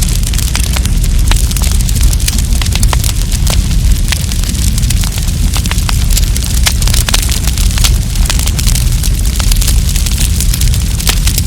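Wood campfire burning, with frequent sharp crackles and pops over a steady low rumble.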